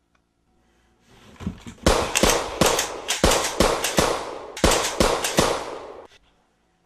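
Gunfire: a rapid series of about a dozen loud shots over some four seconds, with a brief pause midway, cutting off suddenly.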